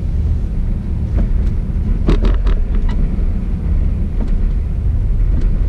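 Steady low road and engine rumble inside a moving car's cabin, with a few brief knocks and clicks about two seconds in.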